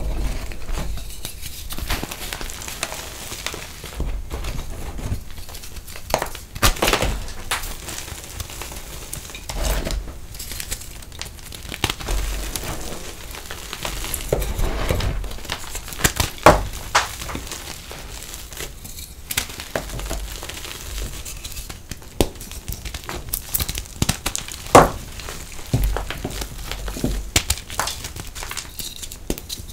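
Reformed gym chalk crushed and crumbled by hand: dry crunching and crackling of chalk chunks breaking into grit and powder, with a few sharper snaps among them.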